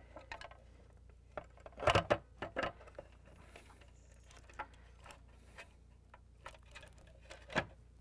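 Scattered light clicks and knocks of hard plastic parts being handled as an auger gear motor is seated into a plastic refrigerator dispenser housing, the loudest knocks about two seconds in.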